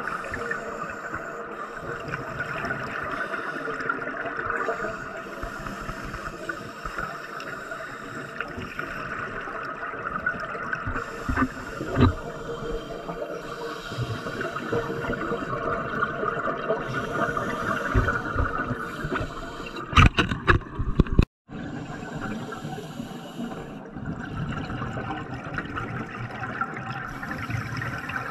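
Underwater sound heard from a camera submerged in the water: a steady watery hiss with gurgling, broken by a sharp click about twelve seconds in and a quick run of sharp knocks about twenty seconds in.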